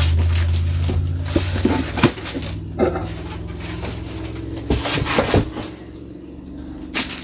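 Knocks and clicks of meat grinder parts and packaging being handled, over a low hum in the first couple of seconds.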